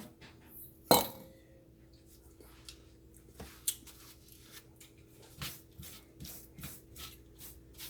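Seasoning shaken from a shaker and rubbed into raw T-bone steaks: faint scratchy shaking and rubbing, with quick clicks about three a second near the end. A single sharp knock comes about a second in.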